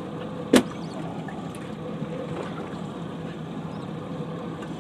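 Motorboat underway: steady engine hum with rushing water and wind, and one sharp knock about half a second in that is the loudest sound.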